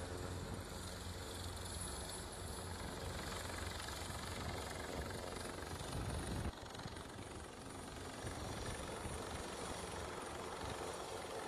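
Airbus H225 Super Puma helicopter hovering close by, its rotor and turbine noise running steadily. The deep rumble drops away suddenly about halfway through.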